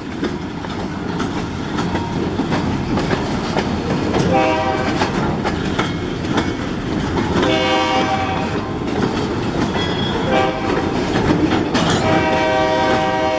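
Escanaba & Lake Superior SD40 diesel locomotive 502 approaching a grade crossing with a steady rumble, sounding its air horn in four blasts, the third short and the last held long: the standard crossing warning.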